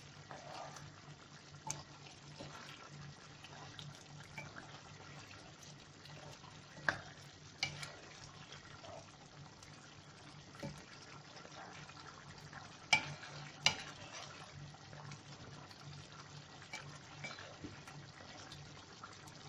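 Wooden spoon stirring a simmering chicken stew in a nonstick pan, the stew bubbling and scraping softly, with two pairs of sharp knocks as the spoon hits the pan, about seven and thirteen seconds in. A steady low hum runs underneath.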